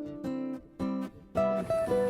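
Background music: an acoustic guitar picking a melody in a steady rhythm.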